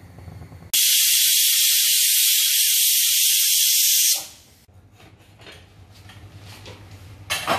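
Pressure pan on a gas stove venting steam: a loud, steady hiss that starts suddenly about a second in and stops after about three and a half seconds. A brief clatter follows near the end.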